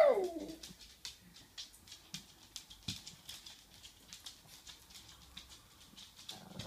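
A shih tzu's begging whine, falling in pitch, dies away in the first half second; after it come light, irregular clicks of dog claws on a hard floor as the dogs move about.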